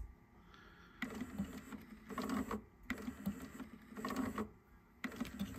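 Nakamichi ZX-7 cassette deck's tape transport clicking into gear with a low motor hum in several short bursts, each one turning only briefly before cutting off. This start-and-stop is the fault the repairer puts down to a dead auto-stop lamp.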